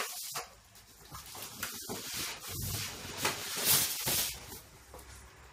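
Cardboard packaging being handled: a sharp knock right at the start, then irregular scraping and rustling as a loose cardboard sheet is pulled out of the box and off the polystyrene foam insert.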